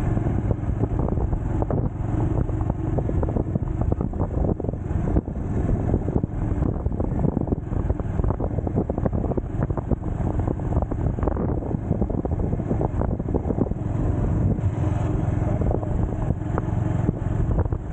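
Motorcycle engine running at a steady cruising speed while riding, with wind buffeting the microphone throughout.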